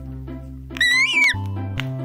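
Upbeat background music with a steady beat. About a second in comes a high, squeaky cartoon-style sound effect that rises and then falls.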